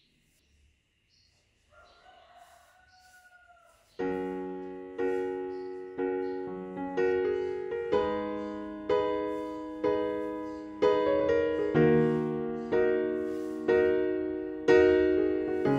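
Solo piano background music starts about four seconds in, with a chord struck roughly once a second, each one fading before the next. Before it there is near silence with a faint drawn-out tone.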